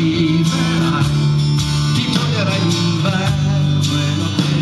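Live pop band playing, with strummed acoustic guitar, keyboard, bass and drums under a male singer's voice.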